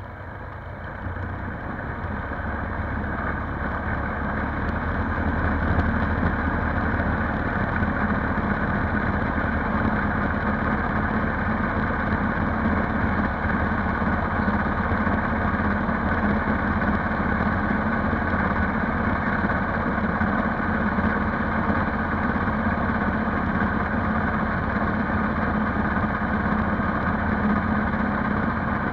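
Polaris Sportsman 570 ATV's single-cylinder engine running steadily. It grows louder over the first few seconds, then holds at an even level.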